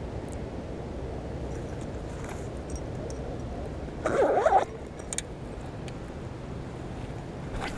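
A zipper on a soft fishing-lure case pulled shut in one quick stroke about halfway through, over a steady low rumble of wind. A few light clicks follow.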